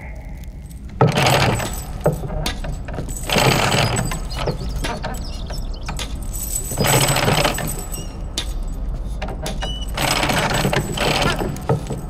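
Wooden mine-shaft cage lift clanking and rattling in bursts about every three seconds, with many small metallic clicks in between, over a steady low hum.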